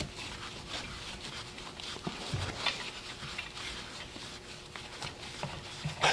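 Gloved hands unscrewing a threaded air fitting from an air compressor's outlet manifold: gloves rubbing and light metal clicks of the fitting as it turns, with a louder clatter at the very end.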